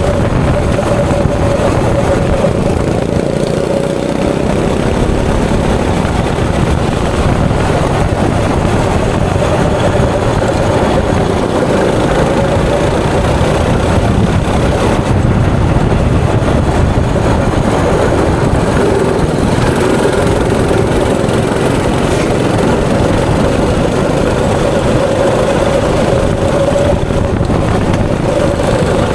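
Go-kart's small engine running under throttle, heard from the driver's seat over a steady rushing noise; its pitch dips for a few seconds past the middle and then rises again.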